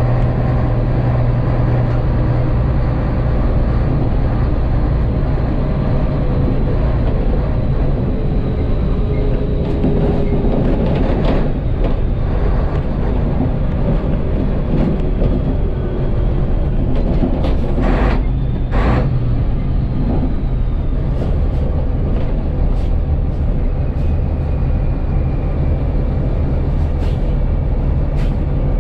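Rába S16 racing truck's D2156 inline-six diesel running under way, heard from inside the cab as a loud, steady drone. Two sharp knocks come about two-thirds of the way through.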